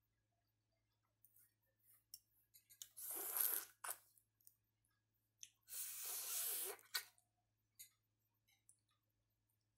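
Close-up eating noises of a person gnawing at the hard bones of a free-range chicken head cooked in opor: two longer noisy bursts of about a second each, around three and six seconds in, with small wet mouth clicks in between.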